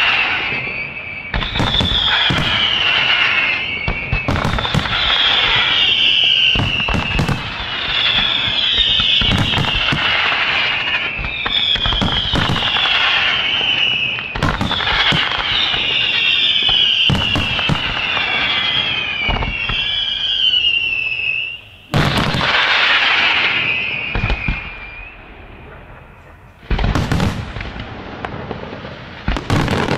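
Luigi Di Matteo aerial fireworks going off in a rapid run of bangs and crackles, with shrill whistles falling in pitch about every second and a half. About two-thirds of the way through it thins to scattered crackle, then the bangs pick up again near the end.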